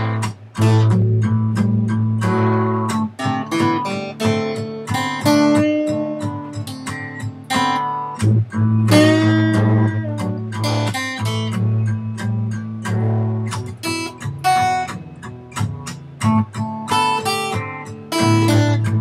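Acoustic guitar played solo: a lively run of single picked notes over a steady low bass note, which drops out briefly about eight seconds in.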